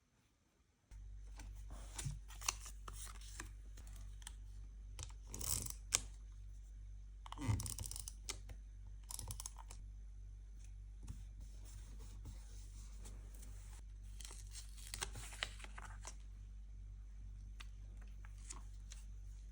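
Paper tearing and rustling in short, scattered bursts with small clicks, over a steady low hum that starts about a second in.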